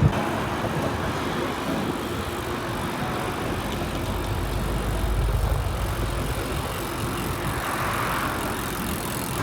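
Steady street traffic and road noise, with a low rumble that swells about five seconds in.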